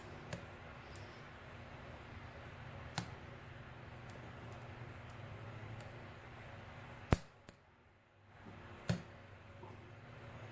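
A few faint, sharp clicks of a lock pick and tension wrench working inside a pin-tumbler padlock's keyway over a low steady hum, the sharpest click about seven seconds in.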